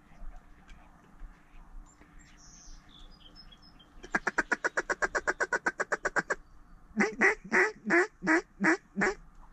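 Mallard-type duck quacking: a fast run of short quacks, about ten a second, for a couple of seconds, then after a short pause about seven louder, longer quacks. Faint small-bird chirps come shortly before.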